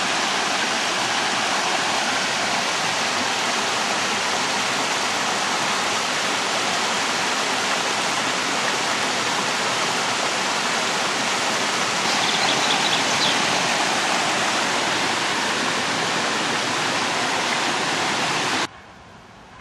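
Mountain stream rushing and splashing over rocks and small cascades, a steady rush of water that cuts off suddenly near the end.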